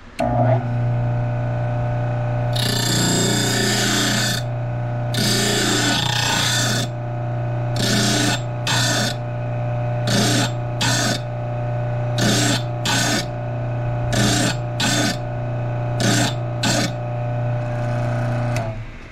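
Homemade drill bit sharpener: an electric bench motor spinning a grinding wheel switches on with a steady hum, and a 1/4-inch twist drill bit held in a sharpening jig is pressed against the wheel to grind its second cutting lip. There are two long grinding passes, then about ten short touches roughly in pairs, and the motor is switched off just before the end.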